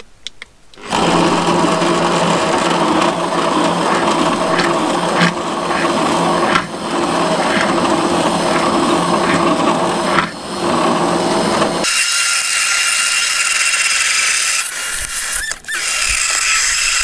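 Hand-held immersion (stick) blender switching on about a second in and running in a glass jar, blending cashews into a thick mash of potatoes, apple and roasted pepper. It dips briefly a few times, and about twelve seconds in its sound turns thinner and higher.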